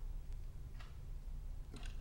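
A few faint clicks and taps as hands handle an opened touch-panel device and its plugged-in USB cable, over a low steady hum: one click near the middle and a couple more near the end.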